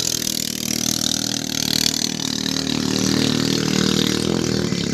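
A Honda GX420 single-cylinder four-stroke boat engine, enlarged to 460 cc with a 3 mm longer stroke, running at full throttle on a small racing boat with a steady drone.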